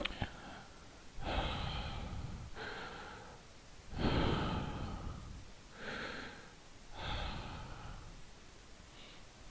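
A person breathing heavily: five loud breaths, each lasting under a second and spaced about a second apart, followed by a faint sixth breath near the end.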